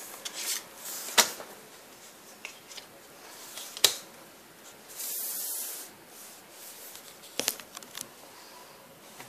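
Trading cards being handled on a wooden table: sharp taps about a second in, near four seconds and twice around seven and a half to eight seconds, with light rubbing between them and a brief hissing scrape around five seconds.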